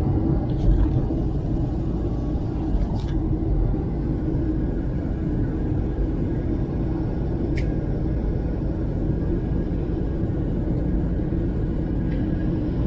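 Steady rumble of airliner cabin noise, the jet engines and the rush of air heard from inside the passenger cabin, with the aircraft on its approach to land.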